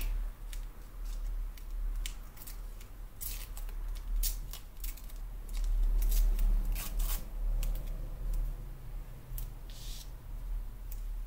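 Washi tape handled by hand: pulled from the roll and torn, with short crisp crackles, clicks and a few longer rasps, along with paper rustling, over a low steady hum.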